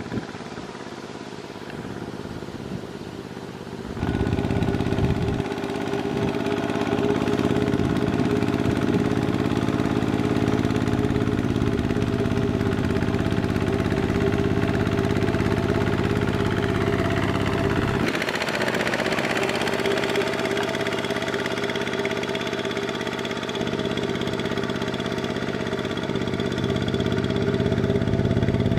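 Engine of a two-wheel walking tractor running steadily under load as its cage wheels churn through deep paddy mud. It gets louder about four seconds in.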